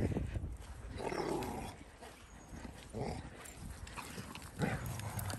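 Dalmatians, a mother and her puppies, growling and barking in short bouts as they play-fight. These are play noises, not a warning.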